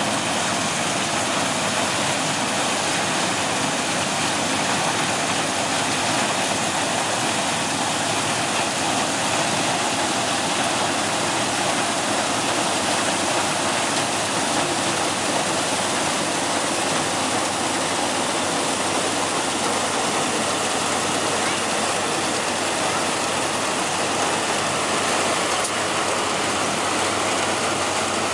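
NS 920 combine harvester working through a standing crop: its engine and cutting and threshing mechanism give a loud, steady mechanical noise that stays even throughout.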